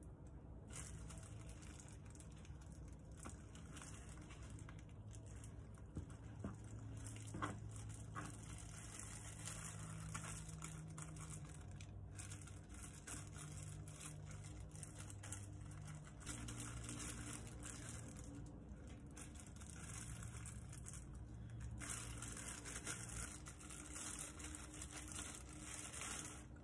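Thin plastic food-handling gloves crinkling while a plastic scraper cuts and scrapes through sticky glutinous rice cake on a plastic cutting board, with small taps and scrapes, over a faint steady low hum.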